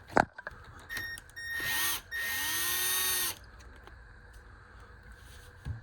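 Cordless power driver running in short bursts, with a brief whir and then a longer spin of over a second whose whine rises as the motor gets up to speed, driving wheel fasteners on an RC truck. A sharp click comes just before the bursts.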